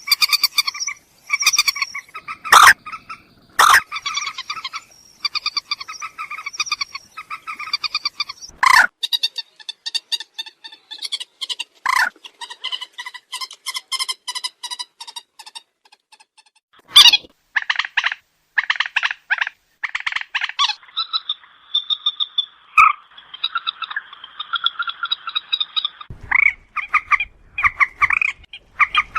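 Moorhen calling: long runs of rapid, pulsed chattering notes, broken by several loud, sharp single calls, with a short pause a little past halfway.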